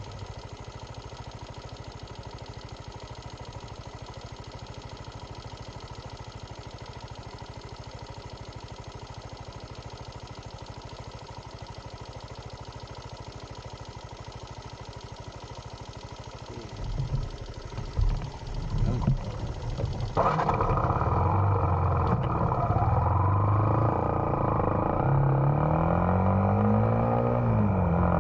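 A vehicle engine running steadily at idle, then picking up about two-thirds of the way through and running much louder as it accelerates, its pitch climbing and then dropping.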